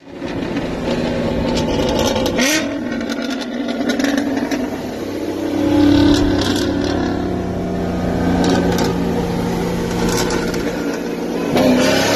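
A 2008 Corvette's cammed LS3 V8 heard from inside the cabin, running at a steady rolling pace, then starting to rev up near the end as the car begins to accelerate.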